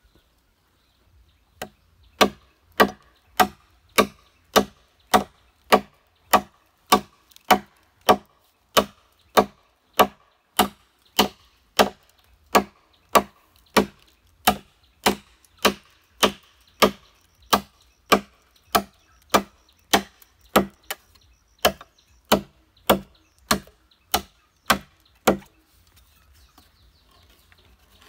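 Machete chopping into a thick green bamboo pole, cutting a notch beside a node: a steady run of strikes a little under two a second, each a sharp knock with a short ringing tone. The chopping starts about a second and a half in and stops a few seconds before the end.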